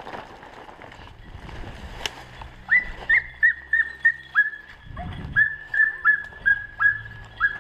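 A German shorthaired pointer whining: a fast run of short, high whines, about three a second, starting about three seconds in.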